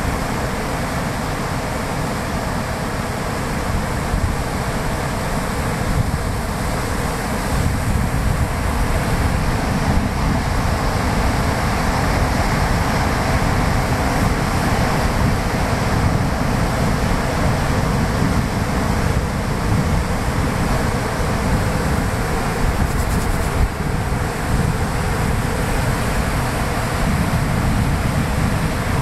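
Surf washing steadily onto a sandy beach, with wind buffeting the microphone.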